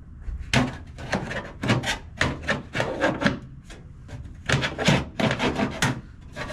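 A car body trim piece being worked into place by hand: a quick series of short scrapes and knocks, about three a second, in two bursts, as its lip is pushed to catch on the clips.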